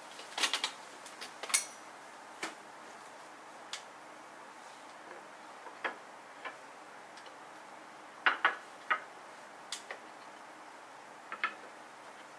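Wooden slatted top panels of a Snow Peak IGT Slim table being lifted and stacked by hand: scattered light wooden clicks and knocks, some in quick clusters of two or three, the loudest near the start and about eight seconds in.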